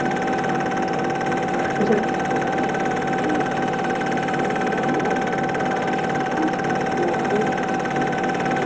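Super 8 film projector running, a steady mechanical whir with a constant hum that holds unchanged throughout.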